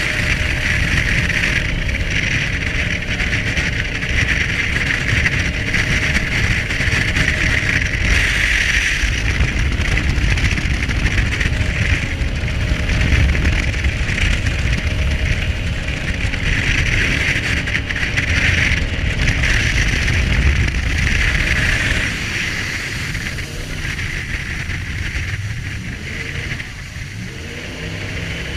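Jet boat running at speed on a shallow river: a loud, steady rush of engine and water noise. It eases off in the last few seconds, and near the end the engine note climbs as it revs back up.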